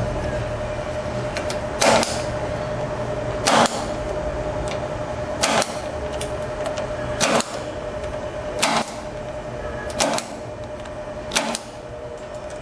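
Punch-down tool snapping as it seats wires into the RJ45 keystone jack's insulation-displacement slots: seven sharp clicks, roughly one every one and a half to two seconds, over a steady hum.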